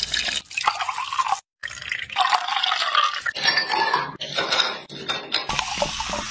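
Liquid dripping and pouring into a glass over ice, with light clinks of ice and glass, in a few short cut-together takes: juice squeezed from a hand press, then soda water poured over ice.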